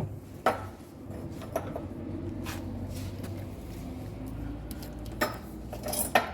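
Scattered knocks and clinks of tools and machine parts being handled while a front-load washing machine is taken apart, a few separate strikes over a low steady hum.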